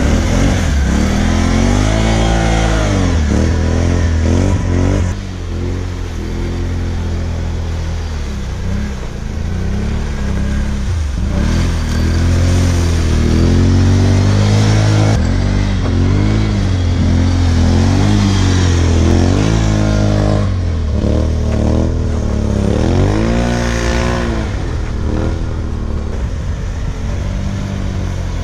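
Can-Am Outlander 570 ATV on Apache 360 tracks, its V-twin engine revving up and falling back again and again as the rider works it through the snow.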